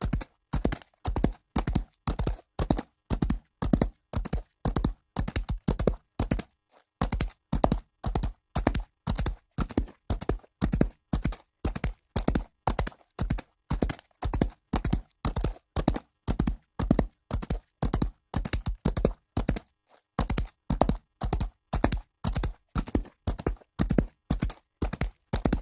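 Horse hooves galloping on dirt: a steady run of sharp hoofbeats falling in groups of three, about four hits a second, with a brief break twice.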